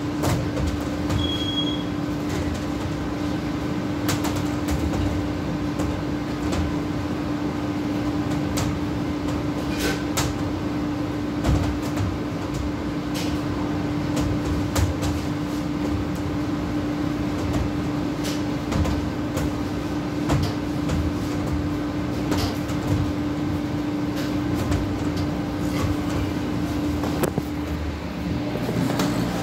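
Steady electrical hum and running noise of commercial fast-food kitchen equipment, with scattered clicks and clatter of kitchen work. The hum stops a couple of seconds before the end, and the phone is picked up and handled.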